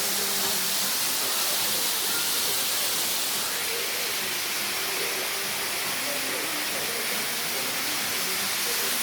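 Steady rush of a waterfall: an unbroken hiss of falling water.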